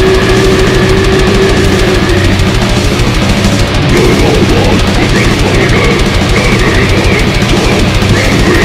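Old-school death metal: heavily distorted guitars riffing over fast, dense drumming. About four seconds in, a long held guitar note gives way to a busier passage with wavering higher notes.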